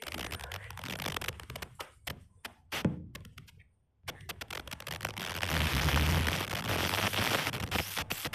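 Camera handling noise: a run of sharp clicks and knocks. After a short break about four seconds in, a steady rushing noise with a low rumble follows.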